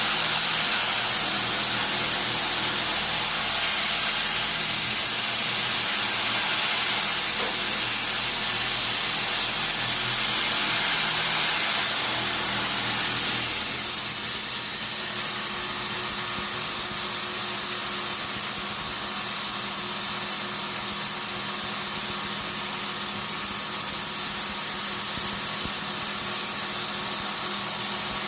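Steady hissing machine noise with a faint low hum, as of CNC machining equipment running, possibly with coolant spray or an air blast; the hiss eases a little about halfway through.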